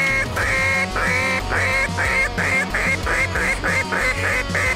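Mallard duck call blown in a series of about a dozen quacks, the first notes long and the later ones shorter and quicker: a hen-mallard greeting cadence used to pull ducks in to the decoys. Background music runs underneath.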